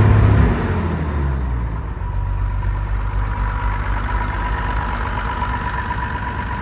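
Perkins 6354 six-cylinder diesel running on its first sustained start after sitting more than 20 years. The revs drop in the first half second and it settles to a steady, smooth idle, running like a Swiss watch.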